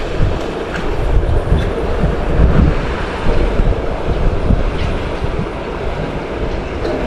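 Wind buffeting the microphone: a loud, uneven rumble that rises and falls in gusts over a steady rushing hiss.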